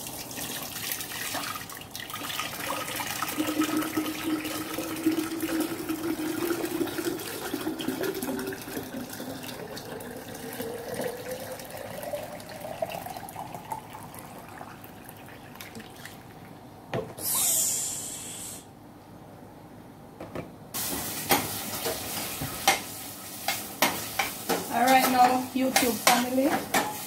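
Liquid poured from a plastic tub through a mesh strainer into a glass pitcher: a splashing stream whose pitch rises steadily as the pitcher fills. After a short hiss, a spoon clatters and scrapes in a steel saucepan near the end.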